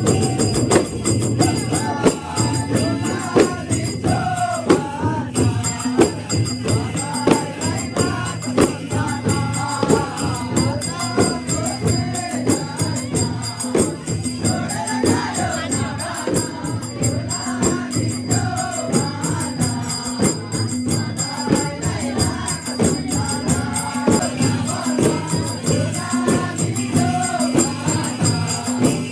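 A group of men singing a Kauda dance song in unison while beating a steady rhythm on hand-held khainjadi frame drums.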